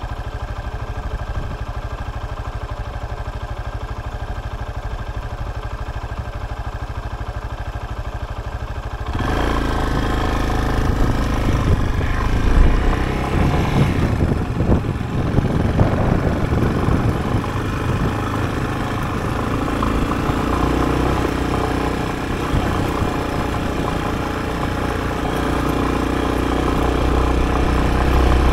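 Yamaha Serow's single-cylinder four-stroke engine idling steadily. About nine seconds in, the bike pulls away and the engine runs under load, rising and falling with the throttle, with a louder rush of road and wind noise over it.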